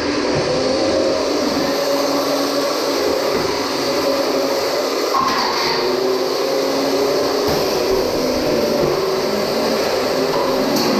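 Beetleweight combat robots' electric motors whining steadily, with several held tones that shift slightly in pitch as they drive and spin up, and a light knock about seven and a half seconds in.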